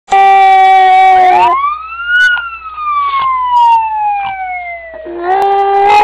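A Japanese Chin puppy howling along with a wailing emergency siren. A held howl opens; the siren then rises and falls slowly over about three seconds, and the howl starts again at about five seconds in.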